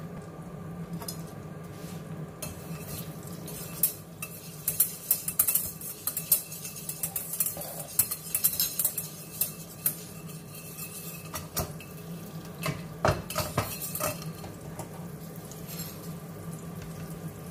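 Wire whisk clinking and scraping against a stainless steel saucepan while stirring melting butter, the start of a roux for béchamel sauce. The taps come rapidly and irregularly from about four seconds in to about ten seconds, with a few more clinks around thirteen seconds, over a steady low hum.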